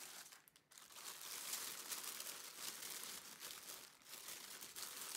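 Plastic mailing bag crinkling faintly as hands handle and fold it back, a run of small crackles that pauses briefly twice.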